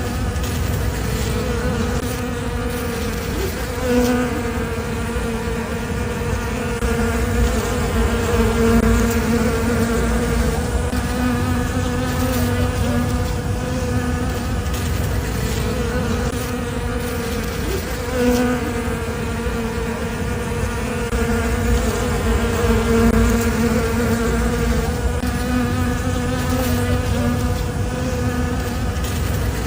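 Bees buzzing together in a steady, many-layered hum that swells and fades slightly, over a low rumble.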